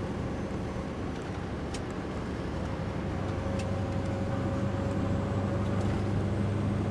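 Heavy truck's diesel engine running steadily under way, heard from inside the cab as a low drone, growing gradually louder.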